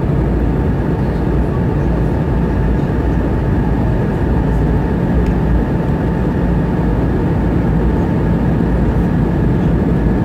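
Airbus A320 cabin noise in flight: the steady roar of the jet engines and rushing air heard from a window seat, with faint steady whining tones above it.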